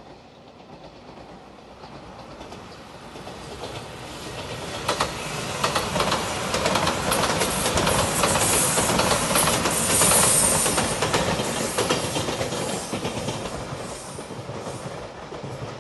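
JR Shikoku 8000 series electric limited express train passing at speed: its running noise swells as it approaches, peaks about ten seconds in with the wheels clattering over the rail joints, then fades as it goes away.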